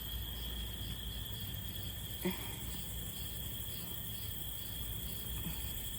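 Insects, crickets or similar, calling in a steady high chorus with a faint pulsing chirp about two or three times a second. A single short knock sounds about two seconds in.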